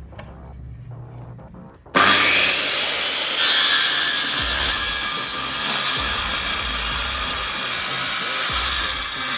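Power tool cutting into mahogany. It starts suddenly about two seconds in and runs steadily at a loud, even level.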